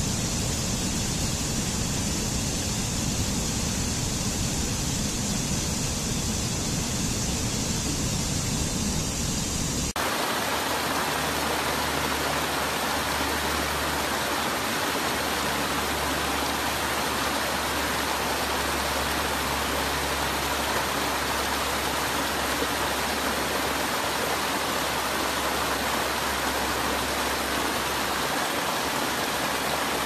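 Steady rush of water tumbling over rocks in a cascading stream. About ten seconds in it cuts abruptly to a different, more even rush of water.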